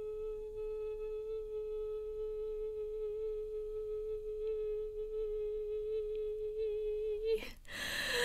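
A woman's voice holding the drawn-out "oi" of "yee boi" as one long high note at a steady pitch, more than forty seconds into a single breath. It wavers slightly near the end and cuts off about seven seconds in as her breath runs out, followed by a sharp gasping breath in.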